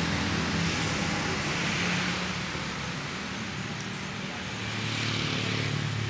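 Road traffic passing: a steady engine hum with road noise, dipping in the middle and swelling again near the end as another vehicle goes by.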